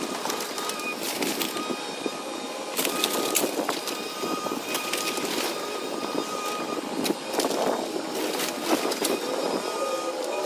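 A Caterpillar excavator running with a steady whine while its bucket tears into a wooden house, making repeated cracks, knocks and splintering of breaking lumber. A falling whine comes near the end.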